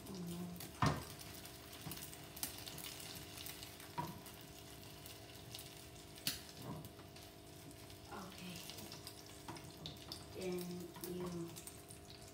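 Beaten egg frying in a pan with a faint steady sizzle, while a spatula scrapes and knocks against the pan as the omelette is turned. There are a few sharp knocks, the loudest about a second in.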